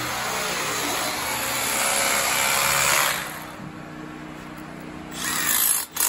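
Cordless drill/driver running against a concrete wall, driving blue-headed concrete screws to anchor a steel strut base plate. A long run builds for about three seconds, then two short bursts come near the end.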